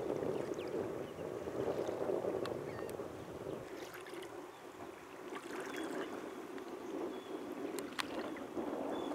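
Small waves lapping and slapping against a kayak's hull, with a few sharp splashes and clicks.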